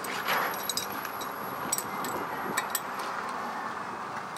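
A few sharp, irregular metallic clicks of a wrench on the propeller shaft's nut as it is worked, with the propeller braced against turning by a wooden block.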